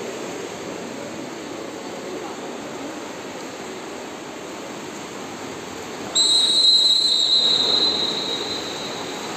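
A water polo referee's whistle blows one long, shrill blast about six seconds in. Before it there is a steady background of splashing water and noise from the pool hall.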